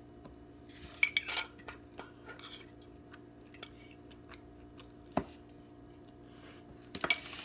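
Metal fork clinking and scraping against a plate as food is picked up. The clinks come in short clusters about a second in and around two seconds, once sharply past the middle, and again near the end, over a faint steady hum.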